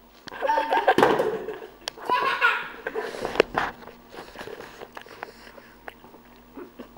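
Laughter in two loud spells, with high-pitched squeals, followed by a sharp knock and a few light bumps and clicks.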